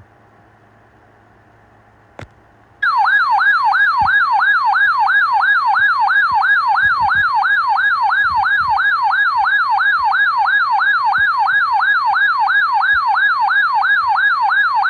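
Weather radio receiver's alert siren sounding for an incoming warning: a loud electronic warble that sweeps up and down about three times a second, starting about three seconds in. Before it, faint radio hiss and a single click.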